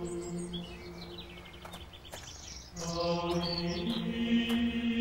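Long held, chant-like notes that fade a little, then return louder on a new chord just under three seconds in, with birds chirping and twittering above them for the first few seconds.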